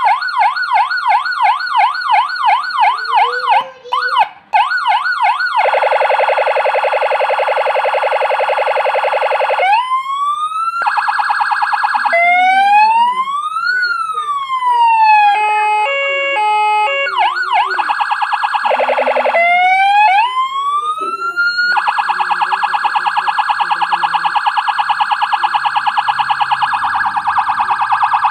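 CJB200HS electronic siren amplifier running through its tones: fast yelp sweeps, a stepped hi-lo tone, slow rising and falling wail glides, and a long rapid warble near the end. The siren is being test-run after a repair and sounds in every mode.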